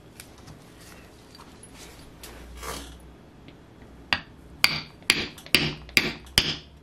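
Light hammer tapping on a wooden block to drive a small ball bearing into an RC glow engine's heated aluminium cover: six sharp taps about two a second, starting a few seconds in after a brief scrape of handling. The bearing is being seated in the housing, warmed so the aluminium expands to take it.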